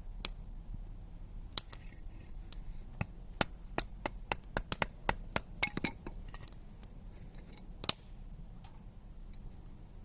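An irregular series of sharp clicks and cracks, about eighteen in all, coming fastest in a run around the middle, with a single louder crack near the end.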